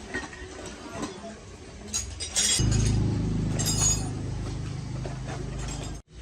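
A few light metal clinks, then about two and a half seconds in the restored lawn mower engine starts and runs steadily, loudest at first and then settling lower, before cutting off abruptly near the end.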